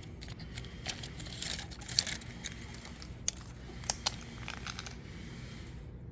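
Light clicks and small rattles from handling the plastic housing and ribbon cable of a disassembled steering-wheel clock spring, a few sharp ticks scattered through.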